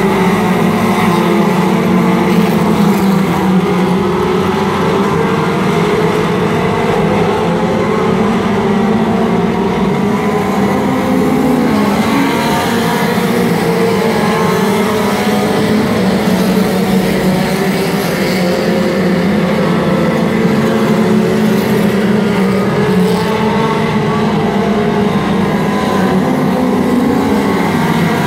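A pack of dirt-track race cars running at speed around the oval: several engines at once, their pitches rising and falling as the cars go through the turns.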